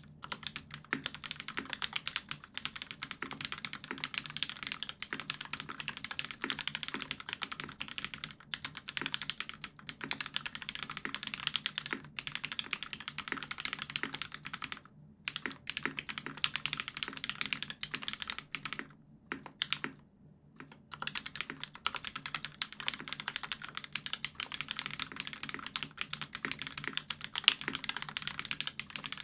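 Fast, continuous typing on a custom mechanical keyboard with an aluminium plate, lubed Hyperglide Cherry MX Black linear switches and GMK keycaps: a dense run of keystroke clacks. There are a few short pauses, the longest around twenty seconds in.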